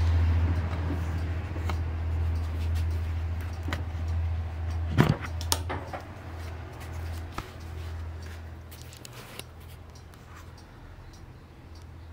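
Handling noise from objects being moved about on a work table: a few light knocks and a sharper knock with a short scrape about five seconds in. Under it runs a steady low hum that fades toward the end.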